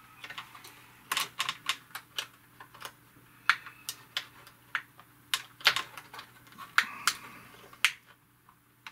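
Irregular sharp clicks and taps from the plastic case and keys of a TRS-80 Model 200 laptop as hands press a part into place above the keyboard. About two dozen clicks, uneven in spacing and loudness, dying away in the last second.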